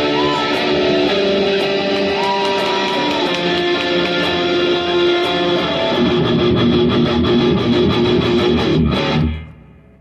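Guitar-driven rock music, a wrestler's entrance theme, that cuts off about nine seconds in.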